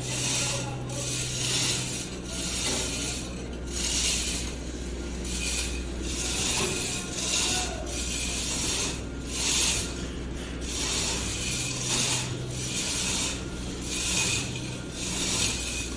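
A metal mechanism ratcheting and rasping in repeated bursts, roughly once a second, over a low steady hum.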